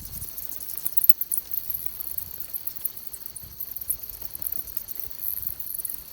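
A colony of bats in the bat houses chattering in rapid, high-pitched squeaks, over a steady high insect drone.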